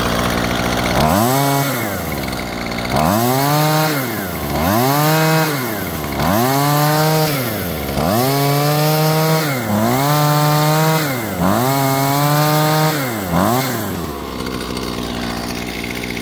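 Husqvarna two-stroke string trimmer engine revved from idle about eight times in a row, each rev rising quickly, holding briefly and dropping back to idle. It picks up cleanly under throttle, its carburetor's clogged fuel inlet screen just cleaned.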